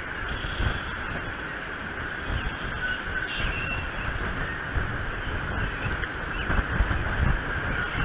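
Wind buffeting an outdoor nest-cam microphone in irregular low rumbling gusts, over a steady hiss of wind and weather.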